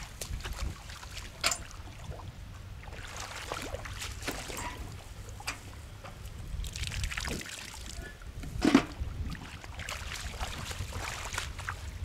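Splashing and sloshing of shallow muddy water as a person wades and reaches into it by hand, in irregular bursts. A sharper, louder hit comes about nine seconds in. Wind rumbles on the microphone underneath.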